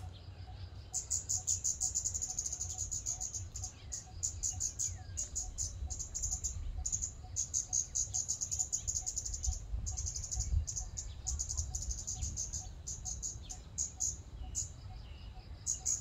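Scarlet-backed flowerpecker calling: fast runs of thin, high-pitched ticking notes in spells of a second or two with short breaks, starting about a second in, over a low steady rumble.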